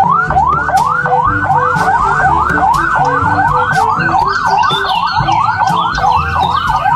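Police car siren in a fast yelp, its pitch sweeping up and down about three times a second.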